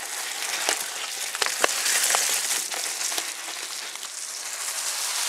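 Mountain-bike tyres hissing and splashing through wet mud on the trail, with a few sharp clicks of the bike in the first couple of seconds.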